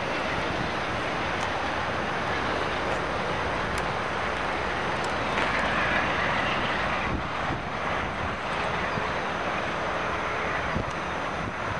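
VIA Rail passenger train pulling away and rolling off into the distance: a steady rumble and hiss of its coaches on the rails.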